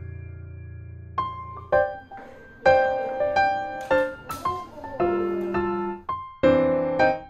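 Background music led by piano: a melody of single struck notes, each starting sharply and fading away.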